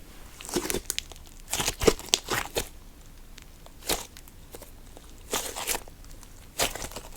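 Cream slime being squished and pressed by hand, giving short clusters of wet crackling and popping as trapped air bubbles burst, five bouts in all.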